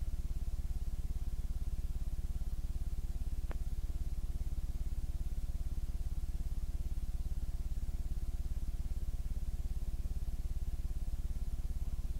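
Steady low electrical hum with a fast, even buzz and no change in level, with one faint click about three and a half seconds in.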